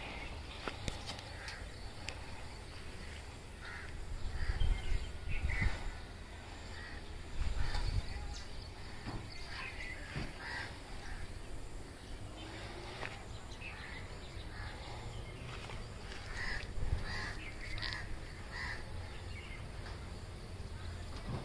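Crows cawing repeatedly, short separate calls scattered throughout, over a low outdoor rumble with a few louder low swells in the first third.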